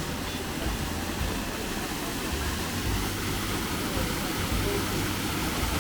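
Steady rushing of stream water and falls, an even hiss with an uneven low rumble underneath.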